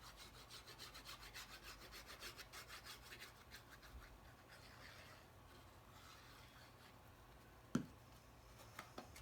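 Quick, rhythmic rubbing on paper cardstock, about five strokes a second, fading after a few seconds: a hand rubbing a glued cardstock piece to press it down. A single sharp tap comes near the end.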